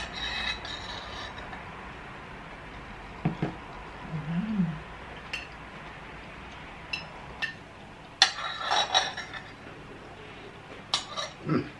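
Spoons and forks clinking and scraping on ceramic plates and bowls during a meal: scattered light clicks, with a denser run of clatter about eight seconds in.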